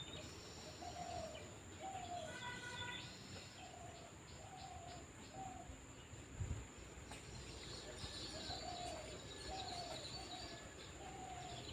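Faint outdoor birdsong: one bird repeats a short, slightly falling low call about once a second, while other birds chirp higher up, over a steady high-pitched whine. A single low thump about halfway through.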